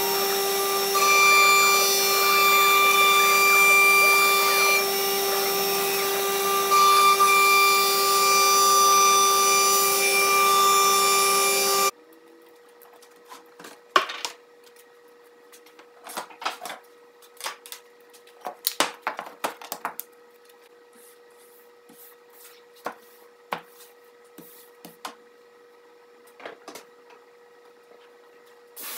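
CNC router spindle cutting solid-surface sheet, a loud steady high whine with several pitched tones. It stops abruptly about 12 seconds in, followed by scattered sharp knocks and scrapes as cut solid-surface pieces are handled and pulled from the router bed.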